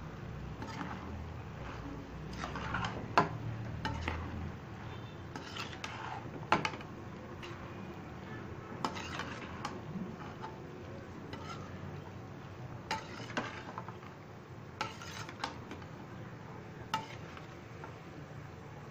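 Perforated metal spatula stirring shredded cabbage and minced beef in a metal pan, with irregular scrapes and clinks against the pan. A sharp clack about three seconds in and another about six and a half seconds in are the loudest.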